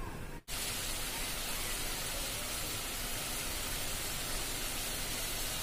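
Coconut-milk curry gravy bubbling and sizzling in an aluminium kadai as it comes to the boil: a steady hiss, after a brief cut-out about half a second in.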